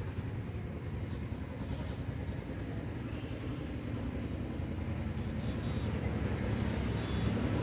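Steady low rumble of vehicle engine noise, slowly getting louder toward the end.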